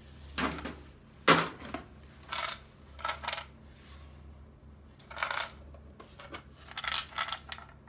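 Small metal compacts and a wooden box being handled and set down among other objects: a string of light clinks, knocks and scrapes, the sharpest just over a second in.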